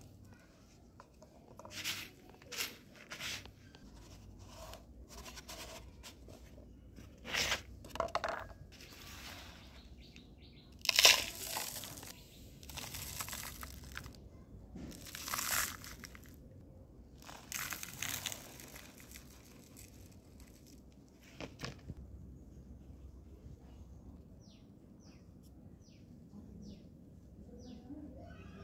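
Dry soil and a paper cup being handled: irregular rustling, crunching and scraping noises coming in bursts, the loudest about eleven seconds in. Near the end, a quick string of about seven short, high, falling chirps.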